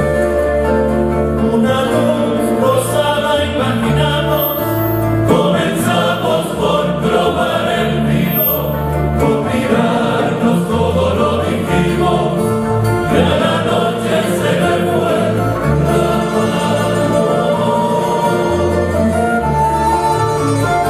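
Men's choir singing over an ensemble of guitars and lutes with steady bass notes. The voices come in about two seconds in and drop out around sixteen seconds, leaving the strings.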